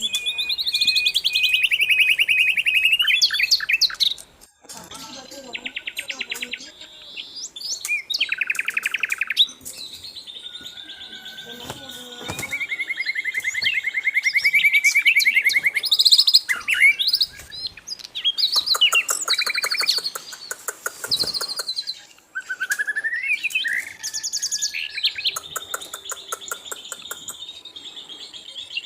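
Sikatan londo flycatcher singing a long, varied song of high whistled phrases, slurred glides and fast rattling trills, broken by short pauses.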